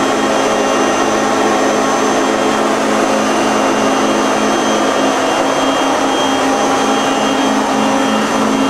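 Steady, loud whirring hum of a powered-up 1984 Niigata HN50A CNC horizontal machining center idling: its hydraulic unit and auxiliary motors running without change.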